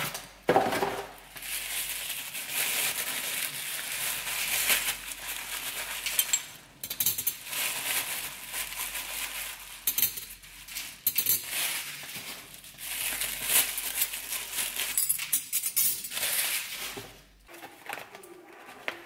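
Paper and packaging rustling and crinkling as new cutlery is unwiped and handled, with short clinks of the cutlery and metal straws against each other. The rustling falls away near the end.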